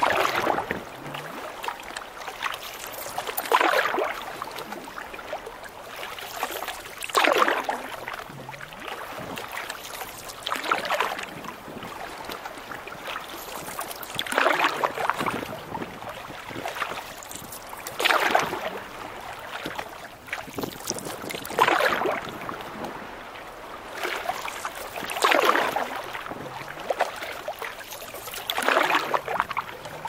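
Canoe paddle strokes in the water: nine even swishes, one about every three and a half seconds, over a steady background noise.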